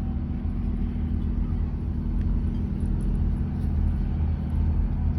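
A motor vehicle's engine running steadily: a continuous low rumble with a constant hum.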